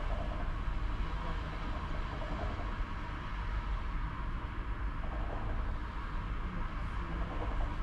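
ČKD Tatra T3R tram running on its rails, heard from the driver's cab: a steady low rumble with an even noisy hiss above it.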